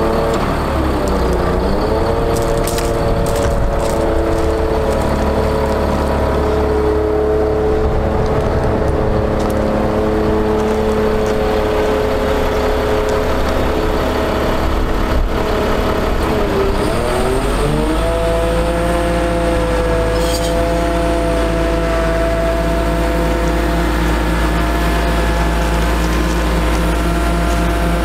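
Caterpillar C7 diesel engine of a Ford F750 bucket truck running steadily while it drives the hydraulics of the raised aerial boom. Its pitch dips briefly and recovers about a second in, and again around seventeen seconds in, after which it holds a higher steady pitch.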